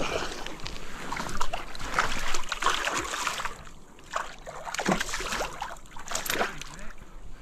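A hooked pike thrashing and splashing at the water's surface, in irregular bursts of splashing.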